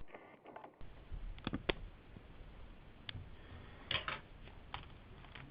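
A few light clicks and taps of plastic, about six spread out, as the netbook's keyboard and case are handled.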